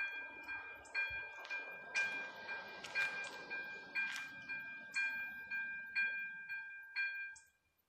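AŽD 97 level-crossing warning bell ringing with a chime-like ding about twice a second, while a low whirring runs underneath as the barrier arm lowers. The bell stops near the end, once the barrier is down.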